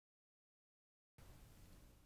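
Near silence: dead digital silence, then faint room tone from about a second in.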